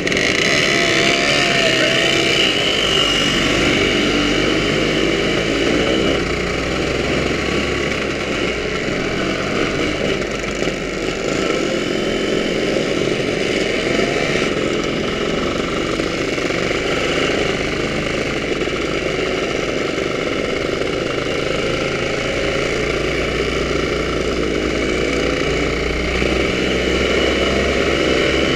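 Scooter engines running as a group of scooters rides along, the pitch rising and falling with the throttle.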